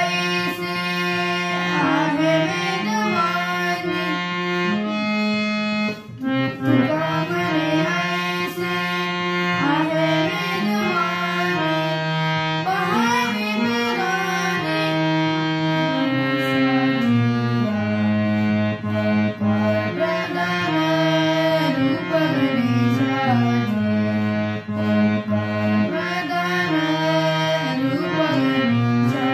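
Harmonium (suropeti) playing a melody, its reeds sounding held notes that change step by step over steady low notes, with a brief break about six seconds in.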